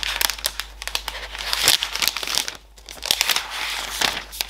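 Translucent protective wrap being peeled and crinkled off a new iPad Air's screen: a run of crackly rustling with a short lull about two and a half seconds in.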